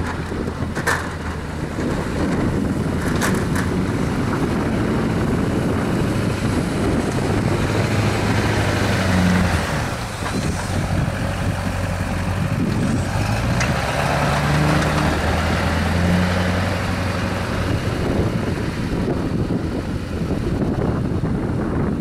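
Chevrolet Silverado dually's 6.6 L Duramax diesel engine working under load while pushing snow with a Western V-plow, with the plow blade scraping. There are a few sharp knocks in the first few seconds, and the engine pitch rises and falls a couple of times.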